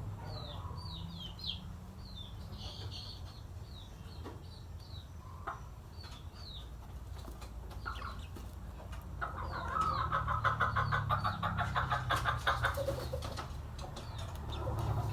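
A chicken with mucus in its throat, held and treated by hand, gives a rasping, rapidly pulsing call for about four seconds from around nine seconds in. Short, high, falling chirps from small birds repeat through the first half.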